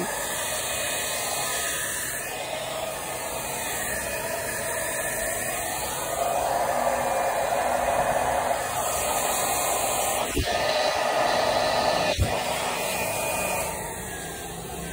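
Handheld electric hair dryer blowing steadily on a wet cat's fur, getting louder about six seconds in and dropping off near the end. Two brief knocks come in the second half.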